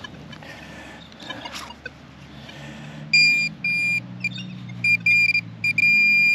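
Metal detector sounding a high-pitched target tone in a string of irregular bursts from about three seconds in, the signal of metal under the coil.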